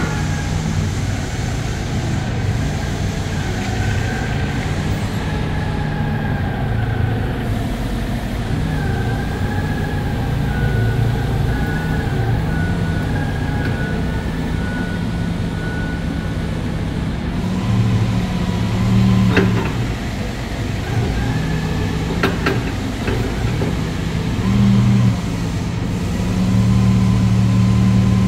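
Toyota 8FG50U forklift engine running steadily, rising in speed a few times in the second half, most of all near the end, as the mast lifts the forks. A few sharp clicks about two-thirds through.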